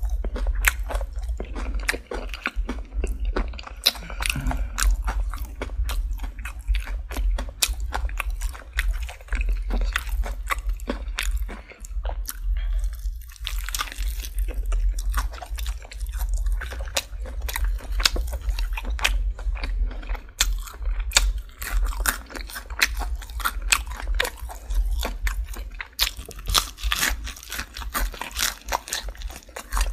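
Close-miked biting and chewing of crispy Popeyes fried chicken: dense, irregular crunches of the fried breading, several a second, over a steady low hum.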